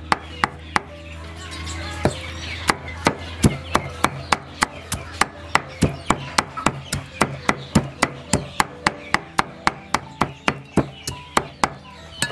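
Steel cleaver chopping meat and bone scraps on a wooden chopping block, in sharp, even strokes about four a second, with a pause of about a second near the start.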